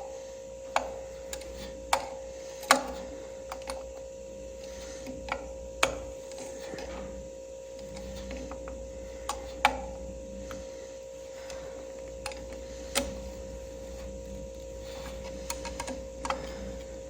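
Irregular small metallic clicks and taps of a wrench working on a tractor's distributor as the points are fastened, over a steady low hum.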